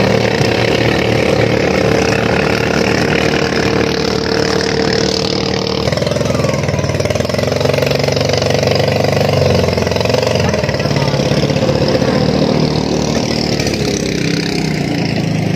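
Engines of motorized bangka outrigger boats running hard in a race, a steady drone with water noise over it; the engine pitch shifts about six seconds in.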